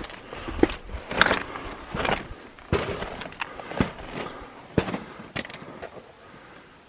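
Footsteps of a hiker walking on the trail, roughly one sharp step a second, growing fainter near the end.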